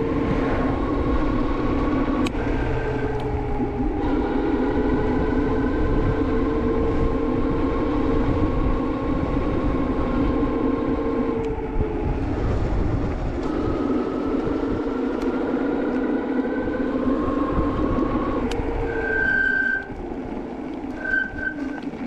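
Juiced HyperScrambler 2 e-bike's Bafang hub motor whining under way, its pitch slowly rising and falling with speed, over road and wind noise. Near the end the motor noise drops and a short high-pitched disc-brake squeal sounds twice as the brakes are applied.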